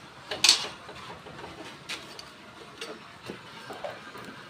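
Cooking utensil scraping and clinking against a pot or pan: one louder scrape about half a second in, then a few scattered light taps.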